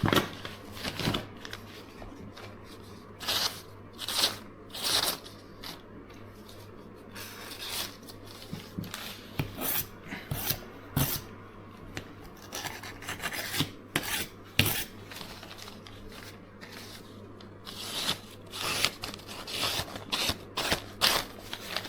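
Steel edge of a Seki Magoroku petty knife being scraped in a series of short, irregular strokes to dull it before sharpening.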